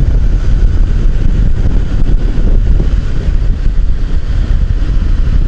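Wind noise on the microphone over a motorcycle riding at steady road speed, loud and mostly low rumble.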